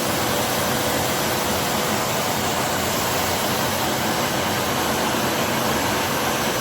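Kärcher SE 5.100 washing (spray-extraction) vacuum cleaner running steadily: an even rush of suction noise with a faint constant whine from the motor.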